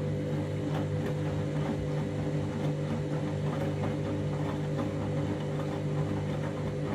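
Washing machine running its final rinse with a very sudsy load: a steady motor hum with faint irregular ticks over it.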